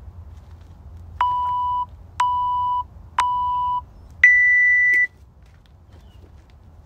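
Workout interval timer's start countdown: three short beeps about a second apart, then a longer, higher beep that signals the start of the timed set.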